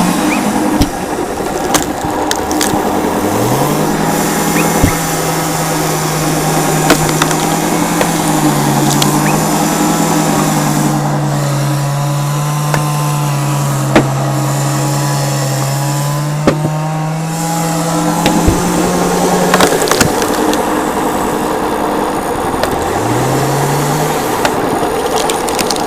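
Stihl chainsaw revved up to full throttle and held there while cutting into wood for about sixteen seconds. Its pitch sags several times as the chain loads up in the cut, and the wood cracks and splinters. After the cut it drops back to idle and is blipped twice near the end.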